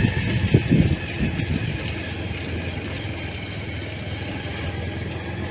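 Engine of a moving vehicle running steadily while driving, with a few brief louder bumps in the first second or so.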